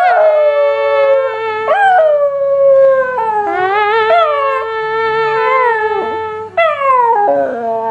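Schipperke dog howling in long drawn-out howls, each sliding down in pitch, with short breaths in between.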